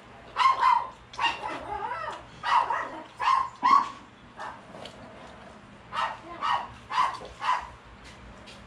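A dog barking repeatedly in short, sharp barks: a run of barks in the first four seconds, then four more about half a second apart starting about six seconds in.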